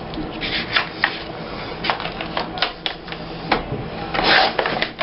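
Paper and scrapbooking tools handled on a tabletop: scattered light clicks and taps, with a brief papery swish about four seconds in.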